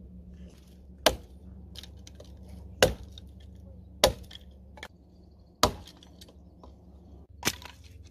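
A hatchet chopping and splitting firewood into kindling on a log: five sharp chops about a second and a half apart.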